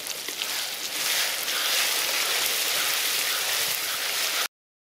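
Cooking sizzling hard in a pot over the fire, a steady hiss that grows louder about a second in, then cuts off abruptly near the end.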